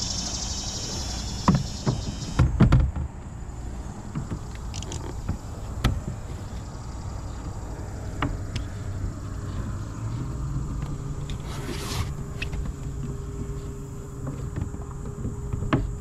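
Old Town PDL kayak pedal drive whirring steadily as the boat is pedalled along, its hum rising in pitch about ten seconds in as it speeds up. A few sharp knocks on the hull come about two seconds in and again around six seconds, as the paddle is handled.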